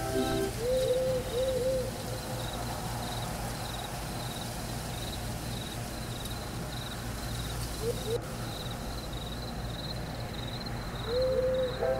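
Nature-sound feedback audio from an EEG headband's neurofeedback app: steady, rapid cricket-like chirping throughout, with short hooting calls, three in a row about a second in, one or two around eight seconds, and more near the end, over a steady low hum.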